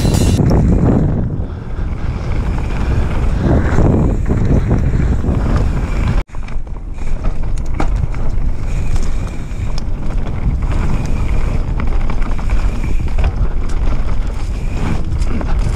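Wind rushing over the camera's microphone while a YT Jeffsy 29 full-suspension mountain bike rolls fast down a dirt forest singletrack, with a low rumble and small rattles from the tyres and bike over the ground. The sound cuts out for an instant about six seconds in.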